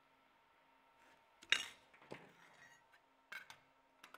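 Thin aluminum plates clinking against each other and the metal work table as they are handled and set in place. There are a few short, sharp clinks, the loudest about a second and a half in.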